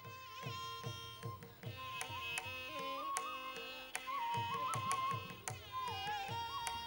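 Background instrumental music in South Indian classical style: an ornamented melody that slides and wavers between held notes over a steady drone, with a regular beat of low hand-drum strokes.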